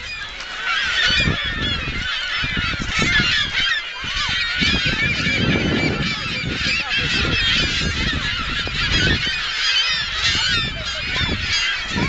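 A large gull colony calling all at once: a dense, unbroken din of overlapping squawks and cries from many gulls, so loud it drowns out everything else.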